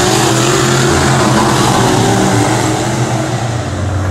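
Dirt-track race car engines running hard as the cars race past on the clay oval, a loud, steady, unbroken engine sound.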